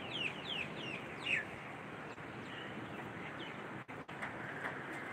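Steady rain falling, with a bird calling a quick run of short notes, each falling in pitch, about three a second, ending a little over a second in with a longer, lower note.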